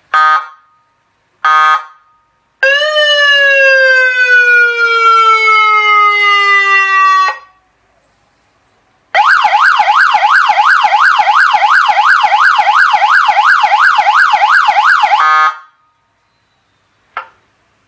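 A 12 V three-tone electronic horn and siren speaker sounding its tones. It gives two short beeps, then a long tone falling in pitch for about five seconds. After a short pause comes a fast warbling siren that sweeps up and down about four times a second for about six seconds.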